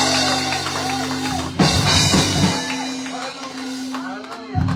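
Church band backing music: held keyboard chords with drum-kit cymbal crashes, one about a second and a half in and another near the end.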